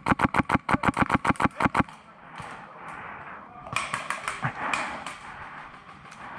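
Airsoft gun firing a full-auto burst: a fast, even string of sharp cracks, about eight a second, that stops after about two seconds. Scattered clicks and knocks follow about four seconds in.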